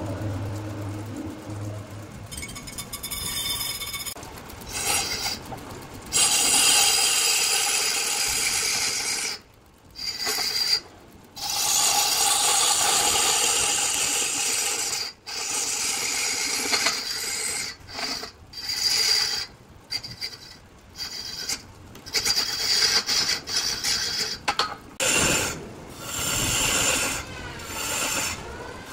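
A tool working against redwood spinning on a large woodturning lathe, a hissy scraping heard in stretches of a few seconds broken by sudden gaps.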